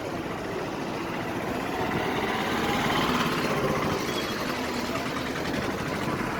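A motor vehicle's engine running, growing louder to a peak about halfway through and then easing off.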